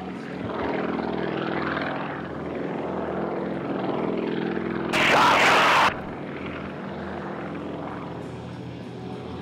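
Sukhoi aerobatic plane's nine-cylinder radial engine and propeller running steadily overhead. About halfway through, a sudden loud rush of noise lasts about a second and cuts off.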